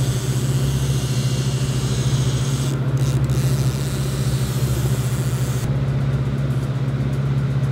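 A sport-fishing boat's engine drones steadily at trolling speed, with the rush of wake and wind over it. The rushing hiss drops away about three-quarters of the way through while the engine drone carries on.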